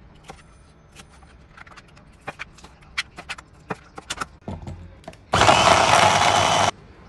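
Chef's knife chopping tomatoes on a plastic cutting board, a string of sharp knocks. About five seconds in, an electric blender with a glass bowl runs loudly on the tomatoes for about a second and a half, then cuts off suddenly.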